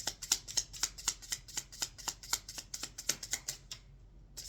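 A deck of affirmation cards being shuffled by hand: a rapid run of crisp card-on-card snaps, which stops for a moment near the end.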